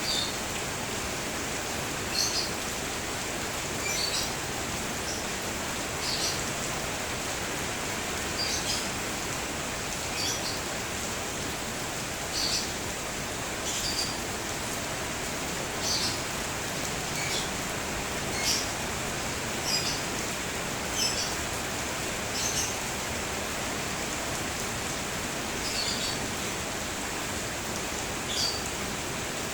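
Steady rain hiss, with a bird giving short high chirps every second or two and a pause of a few seconds near the end.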